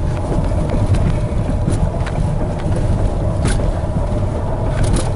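Jeep Renegade Trailhawk's 2.0-litre 170 PS diesel engine pulling under steady throttle up a steep gravel track, heard from inside the cabin as a deep, steady rumble. A few sharp ticks come through.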